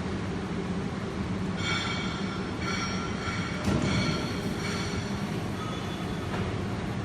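Electro-hydraulic CNC press brake running: a steady low hum from its hydraulic pump with a high-pitched whine that comes and goes from about a second and a half in, and a single knock near the middle.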